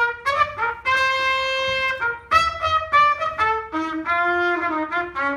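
Jazz big band playing, with a single horn carrying a solo line of short, separate notes and a held note about a second in.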